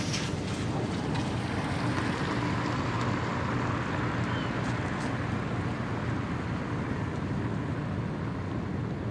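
Steady low drone of marine engines from a large container ship and the tugs working at her bow, with some wind noise on the microphone.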